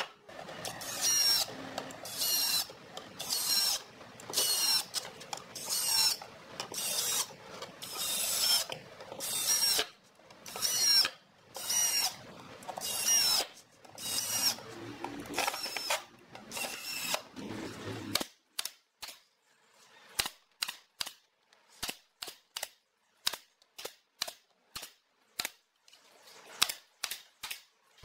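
Cordless drill-driver driving screws through pine seat slats into a log frame, in repeated short bursts, each with a whine that rises as the screw goes in. For the last third the bursts give way to a run of brief sharp taps or clicks.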